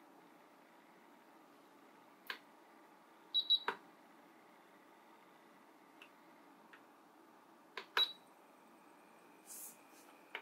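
Control buttons on an Asakuki 500 ml essential oil diffuser being pressed: several soft clicks, and a short high electronic beep about three and a half seconds in and again about eight seconds in.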